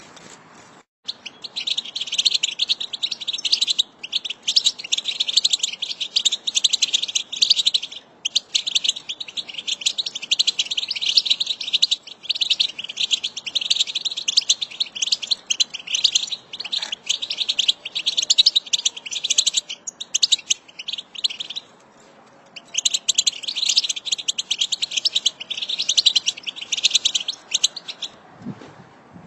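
European goldfinches twittering in a fast, unbroken chatter, the excited 'batbata' call that fanciers play to stimulate caged goldfinches to sing. It starts about a second in and has a short break about three-quarters of the way through.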